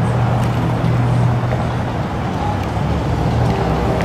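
Street traffic: a car engine running with a steady low hum over road noise, the hum easing off about halfway through.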